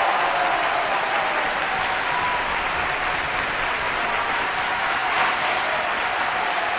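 Applause from a large audience: dense, even clapping that holds steady throughout.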